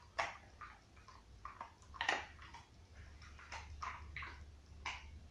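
Dog gnawing and nibbling on a bone: irregular short clicks and scrapes of teeth on bone, a few a second, the loudest about two seconds in.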